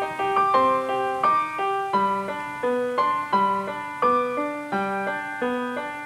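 Background piano music: a flowing, repeating run of struck notes in a steady, gentle rhythm.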